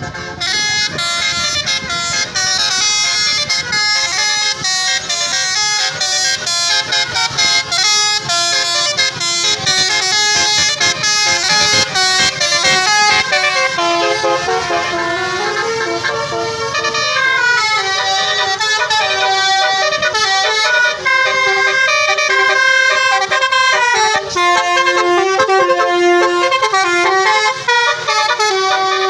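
Bus 'telolet' musical air horn playing a long tune of changing notes, stepping from pitch to pitch without a break.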